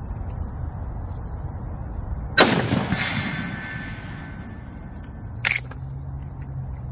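A single shot from a Henry X Model lever-action .30-30 rifle firing a 170-grain Remington load, about two seconds in, with a long echoing tail. About half a second later comes the faint ring of the steel target being hit at 125 yards. Near the end there is a short, sharp metallic clack as the lever is worked to eject the case and chamber the next round.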